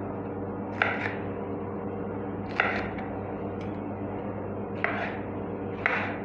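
Chef's knife cutting red bell pepper on a wooden chopping board: four separate, crisp cuts spaced a second or two apart.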